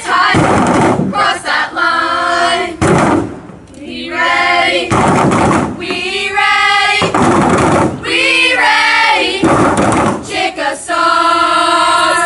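Group of girls chanting a cheer in unison, in loud sung phrases of a second or two each, separated by short breaks.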